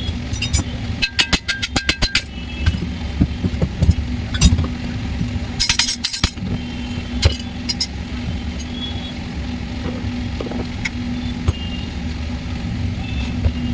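Metal tools clinking during work on an engine pulley whose inner bearing has broken, with a quick run of about a dozen clicks about a second in and single sharp clinks after, over a steady low hum.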